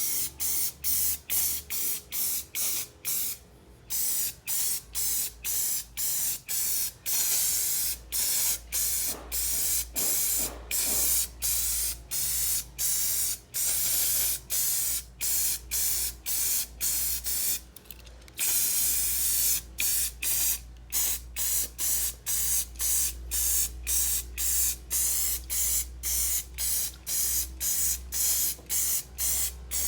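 Aerosol can of Rust-Oleum spray paint hissing in short bursts, about two a second, with a longer pause twice, as it is swept across metal fan grills.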